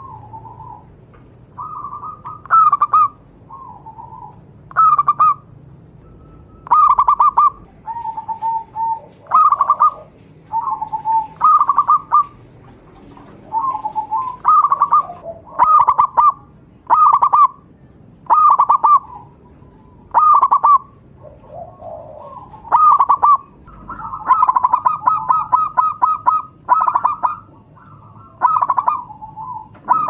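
Local Javanese zebra dove (perkutut lokal) cooing: short pitched coo phrases repeated roughly once a second or so, with a longer run of fast repeated notes about three-quarters of the way through.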